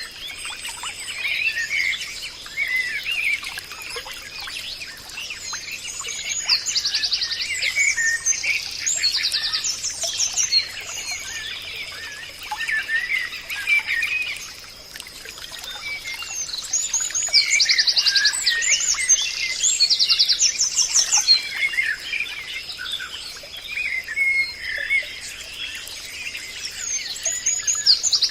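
Forest birdsong: several birds chirping and whistling together, with short, very fast high trills recurring every few seconds, over a steady thin high whine.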